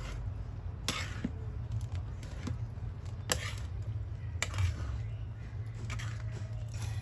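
Wooden spoon stirring tamarind through thick boiling sugar syrup in a metal pan, knocking and scraping against the pan a few times, with sharp knocks about a second in and twice more near the middle. A steady low rumble runs underneath.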